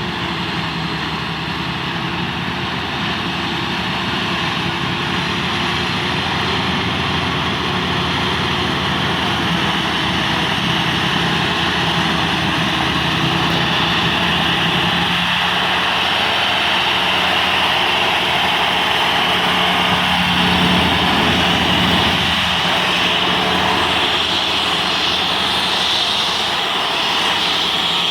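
Heavy farm machinery at the maize silage harvest running steadily: a continuous engine drone with a high hiss over it, growing slightly louder as it goes on.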